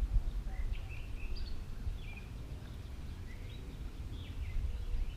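Birds chirping in short calls that slide up and down in pitch, over a steady low rumble of wind on the microphone.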